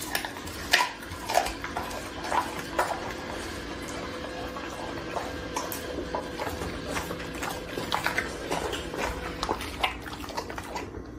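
Dog licking and chewing raw meat scraps off a tile floor: irregular wet smacking, lapping and clicking of the tongue and teeth.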